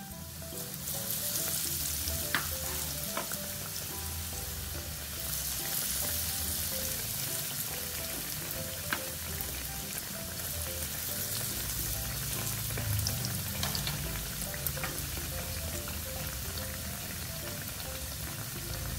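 Breadcrumb-coated sausage bread rolls deep-frying in hot oil in a wok, a steady sizzle of bubbling oil around them.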